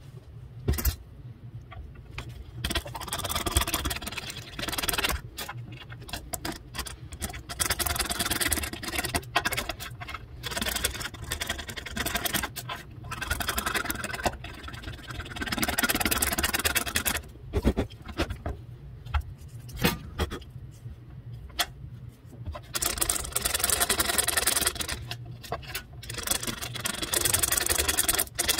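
A red plastic pick scraping and picking caked dirt off an old copper wheat cent against a wooden board. It comes in irregular bouts of scratching, with short clicks and brief pauses between them.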